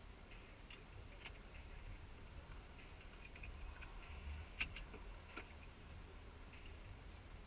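Quiet car cabin: a low steady rumble with a few soft clicks and handling noises, the sharpest about four and a half seconds in.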